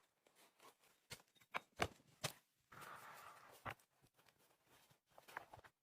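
A few soft, sharp knocks and clicks, with a short rustle of about a second near the middle.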